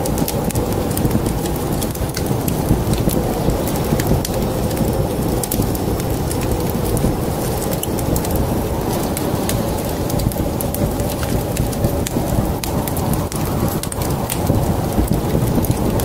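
Wood fire crackling in a fireplace: many sharp pops and snaps, irregular, over a steady low rumble.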